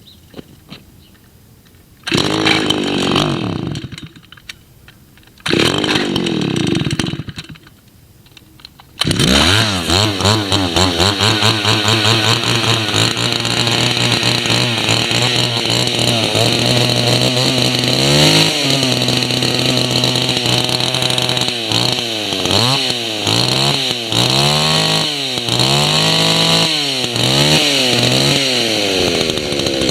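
Vintage Stihl 08 chainsaw's two-stroke engine being started. It fires briefly and dies twice, then catches about nine seconds in and keeps running, revved up and down again and again in the second half.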